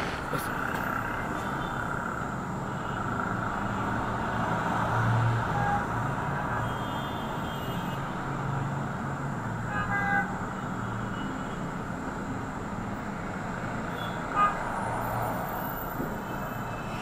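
Road traffic: cars passing on a busy street, a steady rush of engine and tyre noise, with a couple of short car-horn toots.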